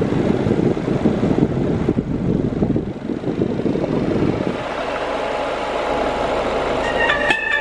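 Low rumbling noise in a car cabin. About seven seconds in, a Polytron active speaker, run from a car power inverter, starts playing music from a phone over Bluetooth.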